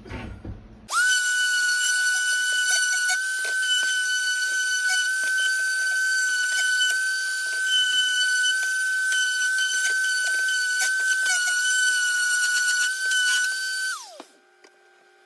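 Electric orbital sander switched on about a second in, running with a steady high whine as it sands a glued-up wooden vanity top, then switched off near the end, its pitch falling as it spins down.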